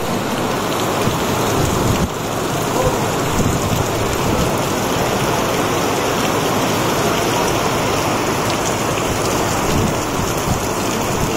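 Heavy rain pouring down steadily in a night thunderstorm: a loud, even hiss of falling water.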